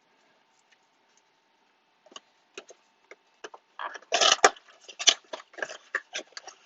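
Packaging of a trading-card blaster box being worked open. A few scattered clicks about two seconds in give way, about four seconds in, to dense crinkling and crackling as the wrapper is torn.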